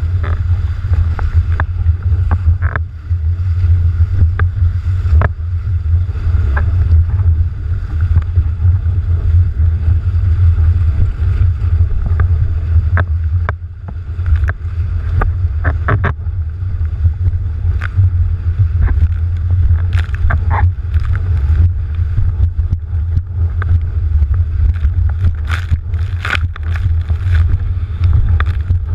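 Windsurfer planing across choppy water, heard through a rig-mounted camera's microphone: a steady low rumble of wind buffeting the microphone, with frequent short splashes and knocks from spray and the board hitting chop, busiest near the end.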